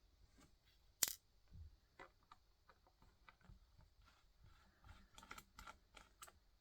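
Faint handling noise of light clicks and taps while working on an opened laptop, with one sharp click about a second in and a run of small ticks near the end.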